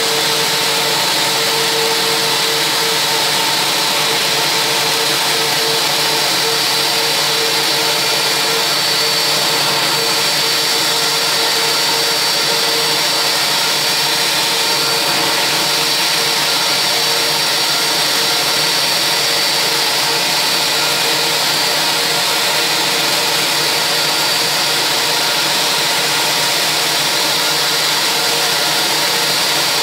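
Parked Airbus A320 jet airliner's turbines running steadily: a loud, even whining rush with a high whistle over it, and a lower hum that weakens about halfway.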